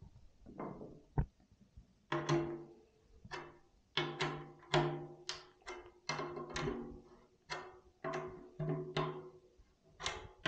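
Snare drum head tapped lightly, again and again, near its tension rods: short hits about one or two a second, each ringing briefly at a fairly steady pitch. This is the head being checked for an even pitch all round while it is tuned.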